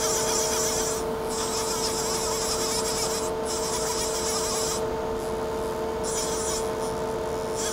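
Nakamura-Tome TW-20MM twin-spindle CNC lathe running under power while the sub spindle's C axis is jogged: a steady hum made of a few fixed pitches over a mechanical noise bed. A high hiss cuts out several times, briefly about a second in and again about three seconds in, then longer near the end.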